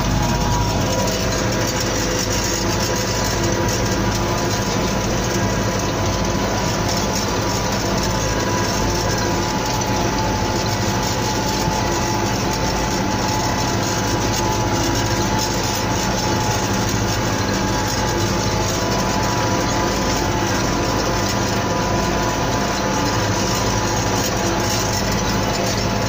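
MTZ Belarus 1025.3 tractor's four-cylinder turbo diesel running steadily under load while pulling a four-furrow plough through the soil, heard from inside the cab, with a steady whine over the engine.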